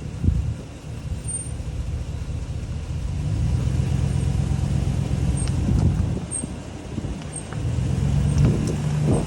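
Car rolling slowly, with a low road and drivetrain rumble that swells twice. Faint short high-pitched brake chirps come about once a second: a squeak that is still there after the calipers were cleaned.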